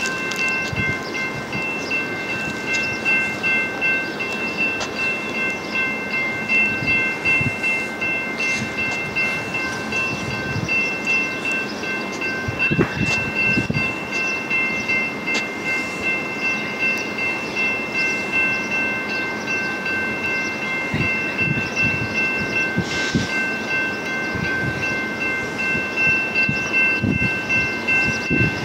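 Electric commuter train approaching along the line, with gusty noise and steady high-pitched ringing tones that hold throughout with brief breaks.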